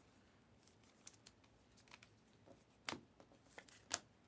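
Faint handling of trading cards: light flicks and clicks as cards are sorted and turned, with a few sharper clicks in the second half.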